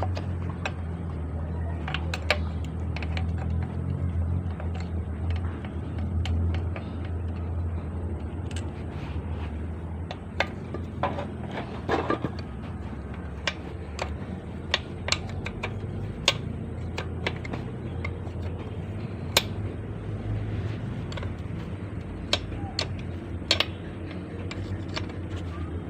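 Scattered metallic clicks and taps of hand tools and parts as a manual gearbox is dismantled to replace a worn bearing and seal, over a steady low hum.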